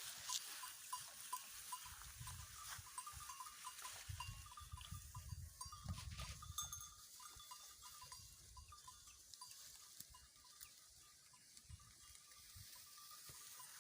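Faint sounds of a goat herd grazing in scrub, with scattered short high ticks throughout and a soft low rustle in the middle seconds.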